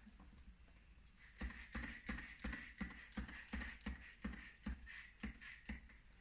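A rag scrubbing sooty fireplace brick back and forth in quick, regular strokes, about three a second, starting about a second in and stopping near the end.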